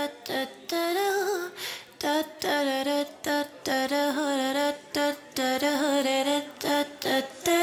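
A lone female voice singing slow, drawn-out phrases with vibrato, unaccompanied, with short pauses between phrases.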